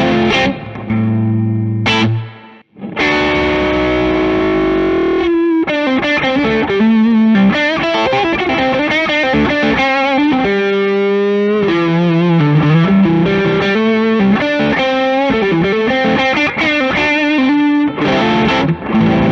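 Les Paul electric guitar with Bare Knuckle humbucking pickups, played through Bluesbreaker-style overdrive pedals (first the Protein, then the Duellist) with the gain turned all the way up: heavily distorted chords and a held, bent note in the first few seconds, then faster single-note lead lines with vibrato.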